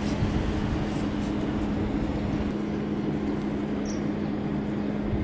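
Steady machine hum with a constant low tone, over a low rumble.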